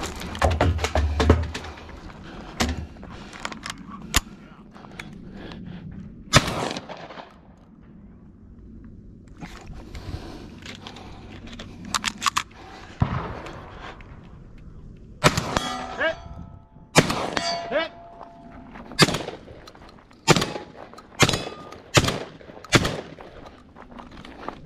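Gunshots fired at irregular intervals: a quick cluster at the start, scattered single shots, then a string of about one shot a second near the end. Steel targets ring briefly after a couple of hits around the middle.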